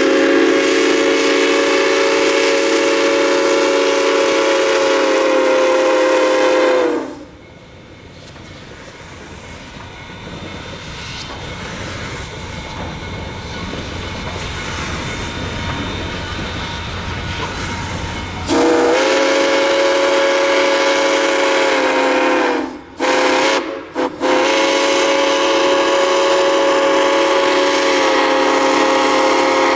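Steam whistle of C&O 1309, a 1949 Baldwin 2-6-6-2 Mallet compound steam locomotive, blowing a long chime blast of several tones at once. The whistle stops and for about eleven seconds the locomotive's working sound grows steadily louder as it gets under way. Then the whistle blows again at length, broken twice briefly.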